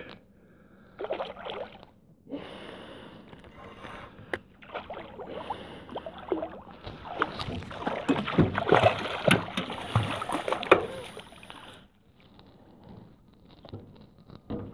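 Water splashing and churning irregularly as a hooked brown trout thrashes at the surface beside a rowboat. It is heaviest about eight to eleven seconds in and dies down near the end.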